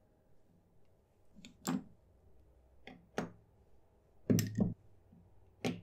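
Fountain pen caps being taken off and the pens handled: a few short plastic clicks and light knocks, about four in all, the loudest a double knock a little after four seconds in.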